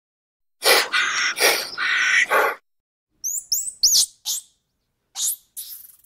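Animal calls: a harsh, noisy call lasting about two seconds, then a quick run of short, very high-pitched chirps and a few brief squeaks.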